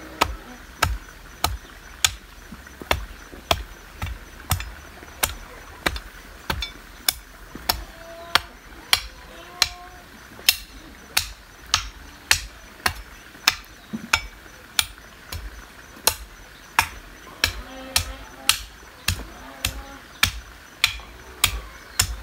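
Hoe blade striking and chopping clay soil in a steady rhythm, about two sharp strokes a second.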